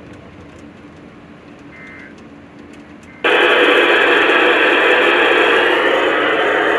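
A quiet stretch with a faint short tone, then a loud steady static hiss cuts in suddenly about three seconds in and holds.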